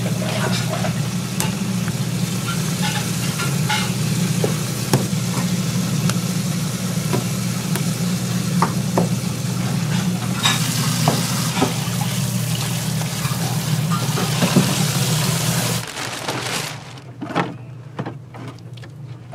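Food sizzling in a hot pan or on a grill, a steady hiss with scattered small crackles and taps over a steady low hum. The sizzle and hum stop abruptly about 16 seconds in, leaving only quieter clicks and taps.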